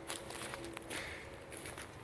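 Footsteps through forest-floor litter: a run of rustling and twig crackles with a few sharp snaps, easing off near the end.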